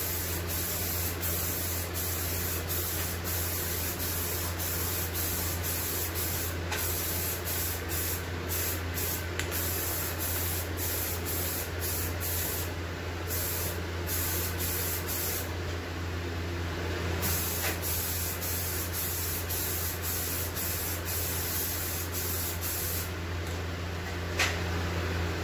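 Aerosol can of Rust-Oleum Peel Coat rubberized coating spraying in long passes, laying down a wet coat: a steady hiss, broken now and then by brief pauses as the nozzle is let off. A steady low hum runs underneath, and there is a single click near the end.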